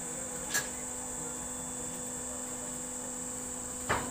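Steady motor hum from a fly ash brick-making machine, with a faint high hiss over it. Two short knocks, about half a second in and near the end.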